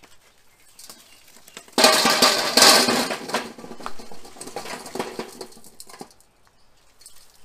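Lit charcoal poured from a chimney starter into a steel barrel smoker. About two seconds in comes a sudden loud clatter of coals tumbling onto the metal grate, dying away over a few seconds into scattered small clinks.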